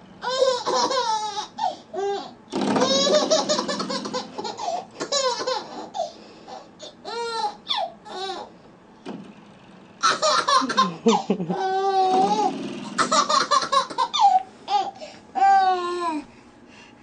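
A baby laughing in repeated bursts of giggles and belly laughs, with short pauses between.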